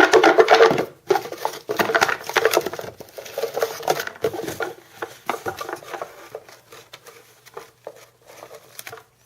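Team-name cards rustling and clicking as they are shuffled and picked through for the next draw, busiest in the first second or so and thinning out toward the end.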